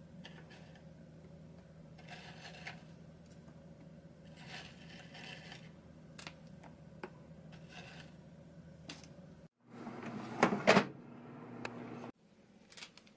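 Soft taps and light clicks as cookie halves are set down on brownie batter in a metal baking pan, then, after about ten seconds, a short, loud metallic clatter as the baking pan is handled in a countertop oven.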